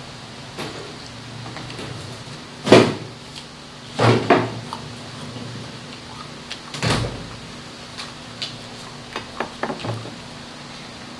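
Crisp fresh apple being bitten and chewed close to the microphone, with a few loud crunches: the loudest about three seconds in, two close together about a second later, another near the seven-second mark, then a few lighter clicks near the end.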